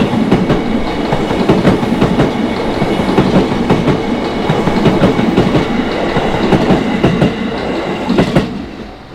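Electric commuter train on the JR Itsukaichi Line running past at close range, its wheels clattering over the rail joints in a steady clickety-clack. The clatter fades away near the end as the last car goes by.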